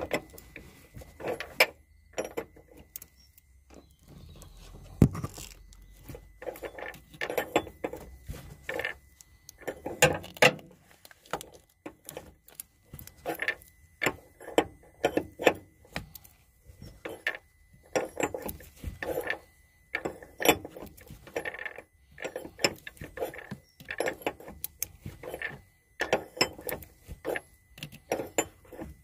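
Metal spanner clicking and clinking on the top-mount nut of a front shock absorber as it is worked back and forth in short strokes, in repeated clusters of sharp clicks with brief pauses between.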